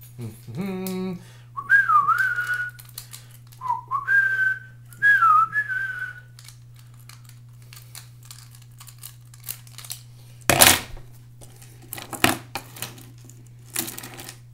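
A man whistling a tune idly in three short phrases of gliding notes, after a brief hum; later come a few sharp clicks and clinks of a key ring and metal carabiner being handled.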